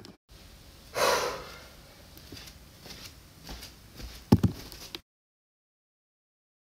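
A person breathing out heavily, like a sigh, about a second in, followed by faint handling clicks and a brief loud, sharp sound a little after four seconds; the sound then cuts to complete silence for the last second and a half.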